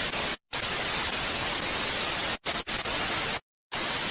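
Television static: a loud, even hiss that cuts out abruptly to silence a few times, for a fraction of a second each time.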